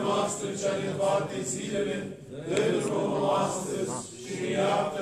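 Male voices intoning Orthodox liturgical chant, in held phrases of about two seconds with short breaks between them.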